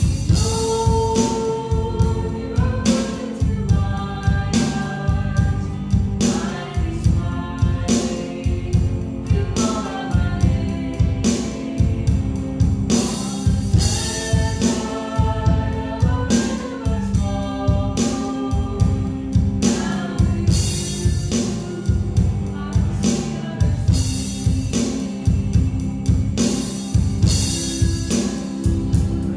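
A worship song: singing voices over guitar and drum kit, with a steady beat.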